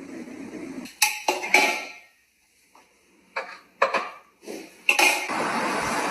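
A run of sharp knocks and clattering clinks, three close together about a second in and more after about three seconds, then a steady rushing noise that sets in near the end.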